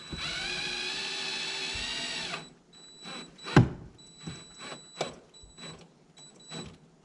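Power drill running steadily for about two seconds as it drives a mounting screw, then stopping. Scattered clicks and knocks follow, with one sharp knock about three and a half seconds in.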